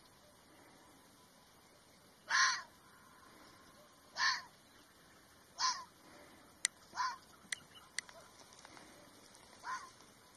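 Red fox barking: five short single barks, spaced a second or two apart. Three sharp clicks fall among the later barks.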